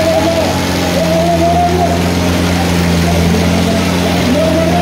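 Diesel tractor engine running at a steady speed, an even low drone with no revving, with a wavering higher voice-like tone over it.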